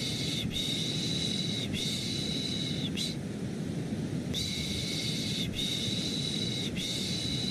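Shushing ('shh') sounds for lulling a baby over steady white noise: three shushes of about a second each, a pause of about a second and a half, then three more.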